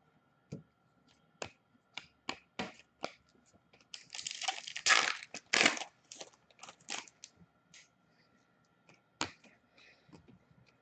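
A trading card pack being torn open, its wrapper crackling for about two seconds in the middle, among scattered clicks and taps of cards being handled.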